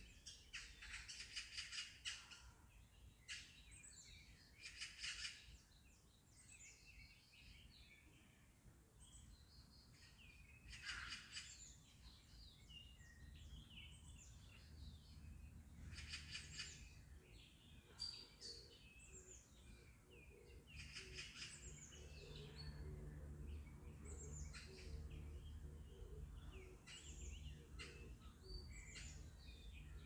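Faint songbirds chirping and singing, many short calls and trills overlapping, over a low steady background rumble that grows a little louder about two-thirds of the way through.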